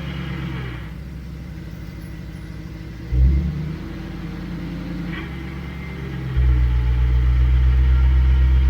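Jeep running on jack stands in gear, turning the front driveshaft through its NP231 transfer case, a test for a suspected transfer case whine. A short low surge comes about three seconds in, and a louder, steady low rumble starts about six seconds in.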